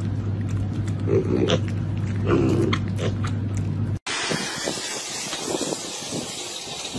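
Piglets grunting a few short times over a steady low hum. About four seconds in, it cuts to an even hiss of wind and surf on a beach.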